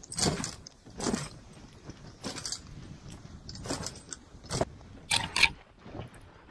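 Dog sled running along a snowy trail behind a husky team: the runners and sled frame give irregular short scrapes and rattles over a low hiss.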